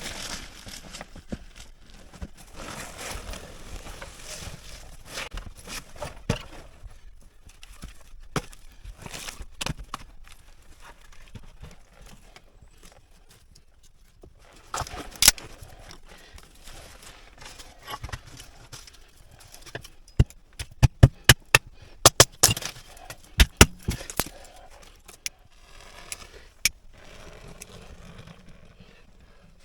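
Irregular knocks, clicks and scraping, like gear being handled or footsteps, with a quick cluster of sharp knocks about twenty seconds in.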